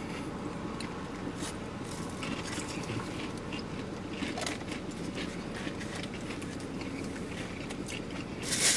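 Chewing and biting into fried chicken tenders: soft wet chewing with scattered small clicks and crinkles, and a louder burst of rustling near the end.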